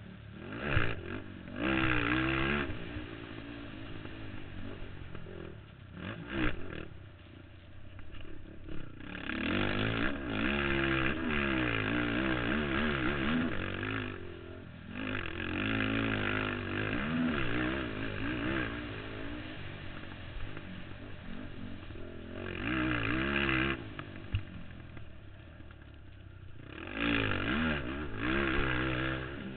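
Racing ATV engine revving hard and easing off in turn, its pitch climbing and dropping over several long pulls of the throttle.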